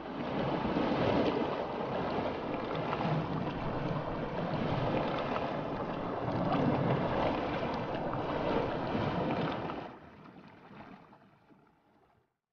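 Churning white water of a swollen river rushing over rocks, a steady roar that drops about ten seconds in and fades out.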